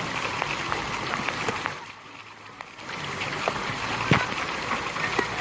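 Stream water running and splashing, a steady rush with many small splashes. It drops in level for about a second near the two-second mark, and a single sharp tap stands out a little after four seconds.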